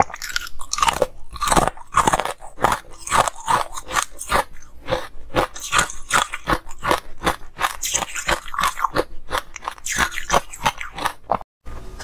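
Close-up crunching and chewing of a mouthful of crumbly green-coloured ice, many rapid crisp crunches one after another. The crunching cuts out suddenly near the end.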